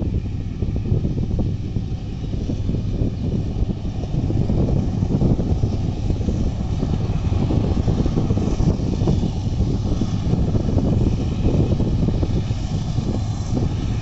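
Diesel freight locomotives working hard to haul a heavy pulp train up a grade: a low, steady engine rumble that grows louder about four seconds in.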